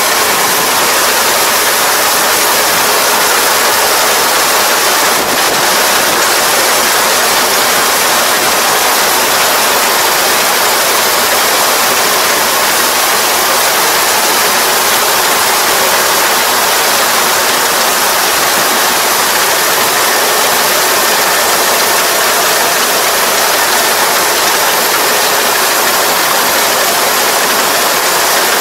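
Kubota ER470 four-row combine harvester running steadily while harvesting rice: a loud, even rushing noise with a faint steady hum underneath and no breaks.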